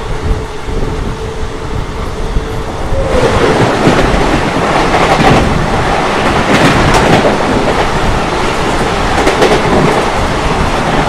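Train running on rails, heard from aboard a moving train. About three seconds in, a sudden loud rush and clatter begins as the Howrah Rajdhani Express passes on the next track, and it keeps on as the coaches go by.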